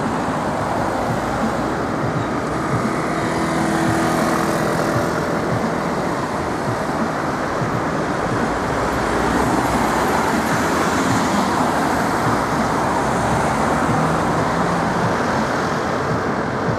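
Road traffic on a busy multi-lane city street: a steady mix of car engines and tyre noise, swelling a little now and then as vehicles pass.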